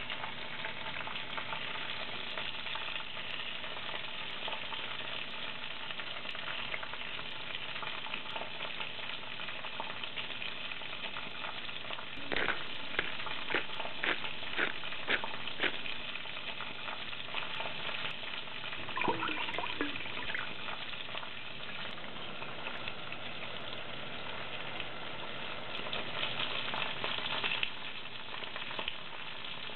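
Ground pork sizzling steadily as it fries in a pan with oyster sauce, soy sauce and cornstarch. Partway through there is a quick run of sharp knocks, a utensil striking the pan as the meat is stirred, and a few more knocks follow soon after.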